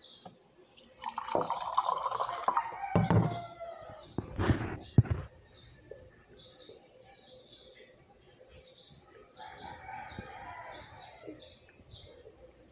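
Water poured into a ceramic mug, then sharp knocks as the mug and the plastic pitcher are set down on a wooden table. After that, small birds chirp again and again in the background.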